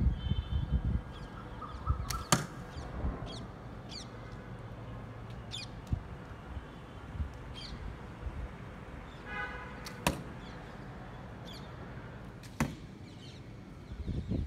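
A fibreglass-reinforced PVC bow shooting arrows: three sharp snaps of the released string, about 2 seconds in, about 10 seconds in and near the end. Birds chirp in the background throughout.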